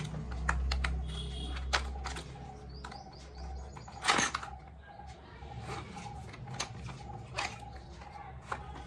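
Small cardboard box being opened by hand, with scattered clicks and scrapes of the card and flap and a louder rustle about four seconds in, as a lip gloss tube is drawn out.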